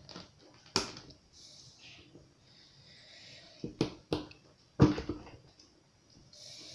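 Small steel parts of a disassembled black-powder revolver clicking and knocking against its grip frame as they are fitted by hand. There is a sharp click about a second in, a quick cluster of knocks in the middle, and the loudest knock just after, with light rubbing between.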